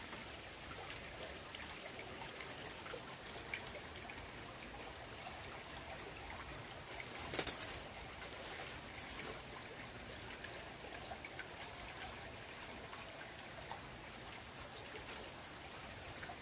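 Small slow-flowing stream trickling steadily, with one short louder noise about seven seconds in.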